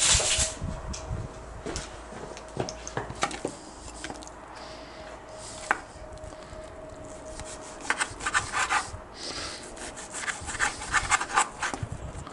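Chef's knife slicing through raw beef on a cutting board: the blade scrapes and taps the board in short sawing strokes. The strokes come in quick clusters about eight seconds in and again from about ten seconds on.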